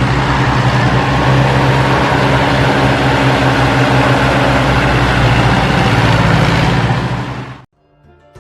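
A vehicle engine running steadily at a constant speed, with a low hum under a heavy hiss. It cuts off abruptly near the end.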